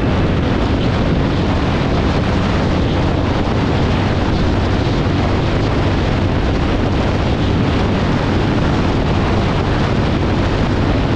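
Loud, steady wind rush over the microphone, with the Benelli Imperiale 400's single-cylinder engine droning underneath at high speed near the top of its range.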